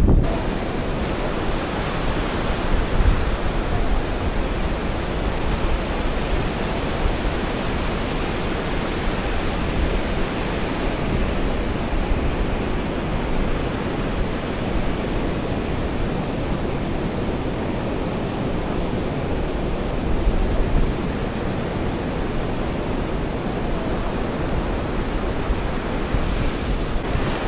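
Sea surf breaking on the beach in a steady roar, with wind blowing across the microphone.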